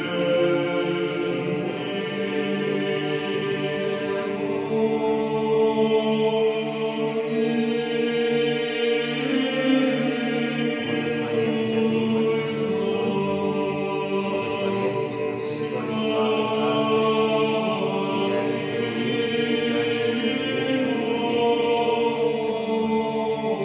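Choir singing Russian Orthodox chant: many voices holding long, slowly changing chords.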